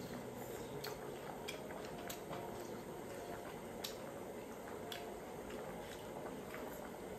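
Hotpot broth simmering in a pot over a portable gas burner, a steady bubbling hiss, with scattered light clicks of chopsticks on bowls and quiet eating.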